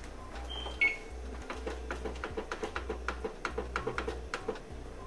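Electronic control panel of a gas range being keyed to set a ten-minute time: two short beeps in the first second, then a quick even run of short ticks, about five a second, as a key is pressed or held to step the time up.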